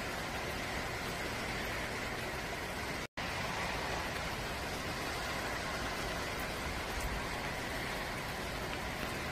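Steady outdoor hiss of ambient noise, even throughout, cutting out completely for an instant about three seconds in.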